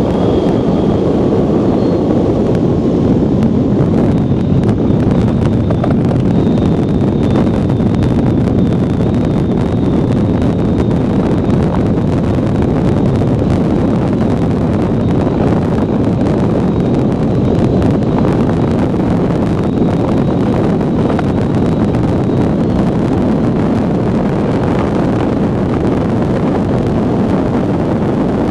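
Steady rushing of wind over the microphone and an iceboat's runners on black ice at speed, with scattered faint clicks and a thin high tone that fades out about three-quarters of the way through.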